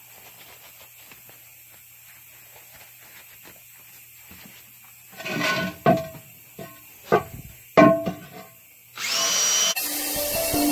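DeWalt cordless drill spinning a wire wheel brush against a wheel rim in several short bursts starting about five seconds in, scrubbing the rim clean so the tire bead can seal. Electronic music comes in near the end.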